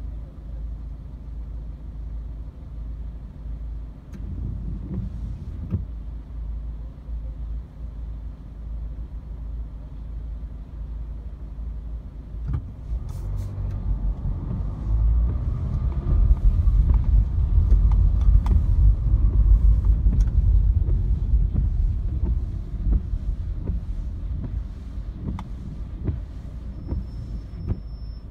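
Car heard from inside the cabin: a steady low engine and road rumble that grows louder in the middle, with the windscreen wiper blades sweeping across a nearly dry windscreen in the second half.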